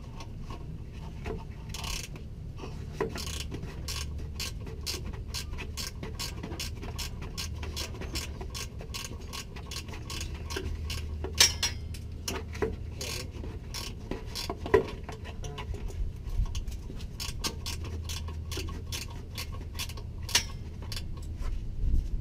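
A hand ratchet clicking rapidly as the exhaust hanger bolt is turned, with a few sharper metal knocks along the way.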